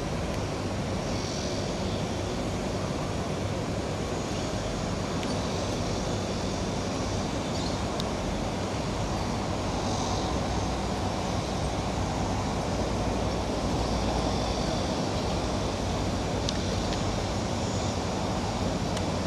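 Steady low outdoor rumble of distant rail and road traffic, with a few faint high chirps now and then.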